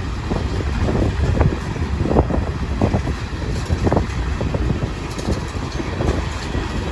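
Freight train's cars rolling past: a steady low rumble with irregular clicks and clunks of wheels over the rail joints, and wind buffeting the microphone.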